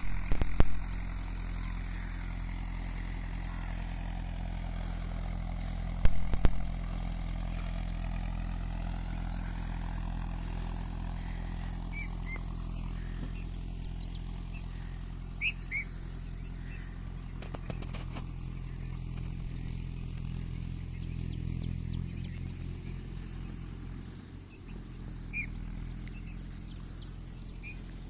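Steady low engine drone, as of a running vehicle, with a few short bird chirps and loud knocks near the start and about six seconds in.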